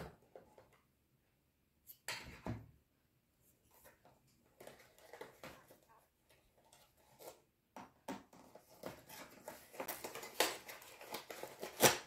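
Hands handling small plastic camera-mount parts and a cardboard box insert: scattered clicks, scrapes and rustles of cardboard, getting busier in the second half, with one sharp knock near the end as the cardboard insert is lifted.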